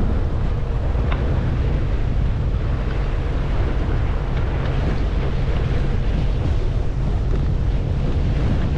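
Strong wind buffeting the microphone steadily aboard a moving boat, with the rush of water and the boat's running underneath.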